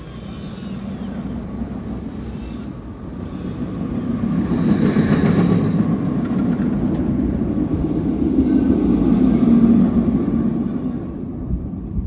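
Mandrill Mayhem roller coaster train, loaded with test dummies, running on its steel track during a test run: a rumble that swells from about a third of the way in, is loudest near the end, then eases off.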